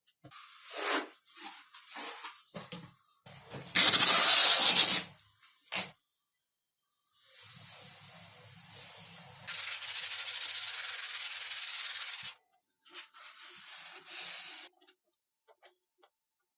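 Hand work rubbing and scraping on XPS foam in separate scratchy strokes. It is loudest in a burst of about a second around four seconds in and in a steadier pass of about three seconds from around nine and a half seconds.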